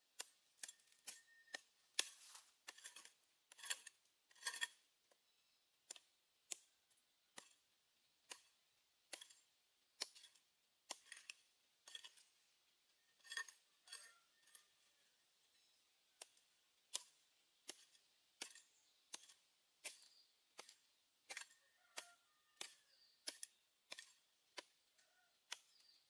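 A small hammer and metal digging tool chipping into dry earth: a string of short, sharp strikes, about one or two a second, with quiet gaps between them.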